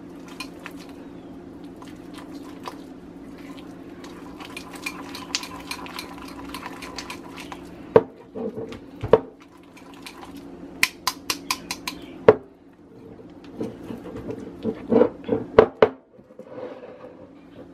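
A small wire whisk beating chilled homemade butter in a glass bowl: soft scraping with repeated sharp clicks and taps of the metal wires against the glass, in clusters around the middle and near the end. A steady low hum runs underneath.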